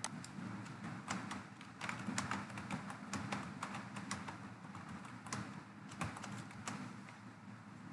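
Typing on a computer keyboard: a fast, uneven run of key clicks over a steady low background hum.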